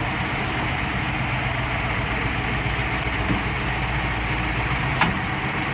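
An engine running steadily with a low, even drone, and a single sharp click about five seconds in.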